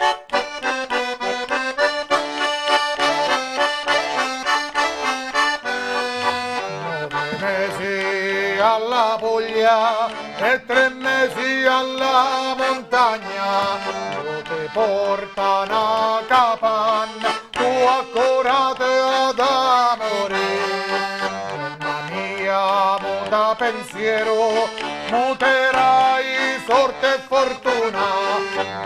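Diatonic button accordion (organetto) playing a traditional Italian folk tune, with a man's singing voice joining about eight seconds in.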